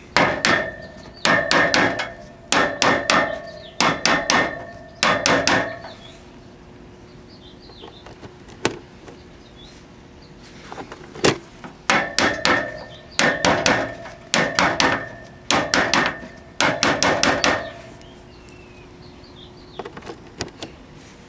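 Quick runs of sharp taps on a tube tester and the vacuum tube under test, each run of a few knocks with a short metallic ring. The taps come in two spells with a quiet pause between them and one lone knock in the pause, as the tube is tapped to see whether its grid emission or leakage reading clears.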